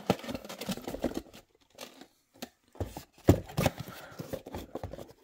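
Rustling, scraping and a few knocks as a tight-fitting diorama road panel is worked free of its cardboard box by hand; the loudest knock comes a little over three seconds in.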